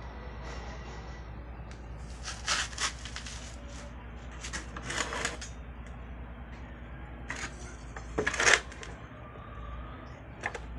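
Metal clinks and scrapes from the steel base plate of a homemade angle-grinder circular saw being handled and shifted on a table, the grinder not running. They come in several short bursts, the loudest about three quarters of the way through.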